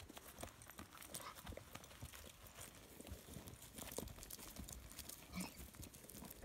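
A mule's hooves and a man's boots walking over dry, short grass: faint, irregular steps with no steady rhythm.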